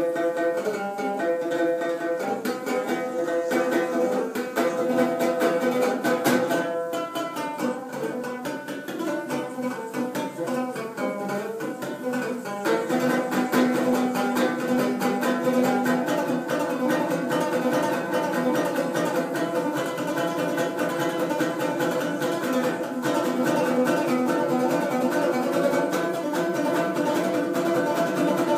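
Instrumental music led by plucked string instruments, with a change in the arrangement about halfway through; the bass is thin.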